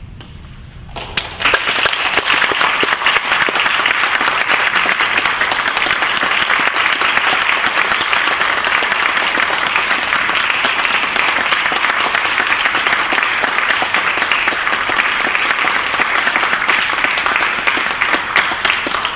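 Audience applauding, breaking out about a second in and then going on steadily as many hands clapping together.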